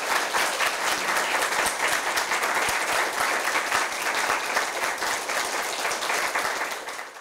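Audience applauding, many hands clapping at once; the clapping thins out in the last second and then cuts off suddenly.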